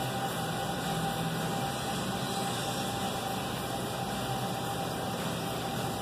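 Steady hum and hiss of running aquarium equipment, with a faint unchanging tone.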